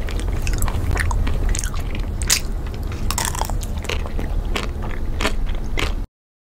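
Close-miked biting and chewing of frozen chocolate-coated ice cream bars: many short, crisp crunches of the chocolate shell over a steady low rumble. The sound cuts off abruptly to silence about six seconds in.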